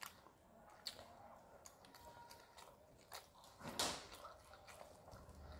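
Faint sounds of eating rice by hand from a steel plate: soft chewing and scattered small clicks, with one brief louder noise just before four seconds in.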